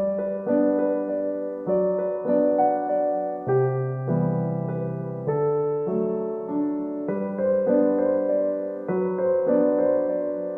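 Background piano music: soft electric-piano chords changing every couple of seconds with a steady pulse.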